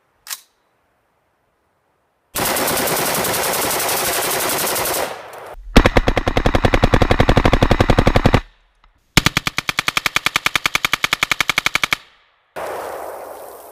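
Automatic fire from a 5.56 AR-15 with a Wolf A1 (Taiwanese Type 91) gas-piston upper. There are several long bursts of rapid, evenly spaced shots, broken by short silences, and a single click just before the first burst.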